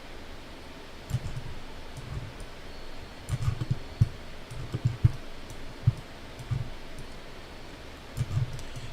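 Irregular clicks and light taps of a computer mouse and keyboard, some in quick clusters.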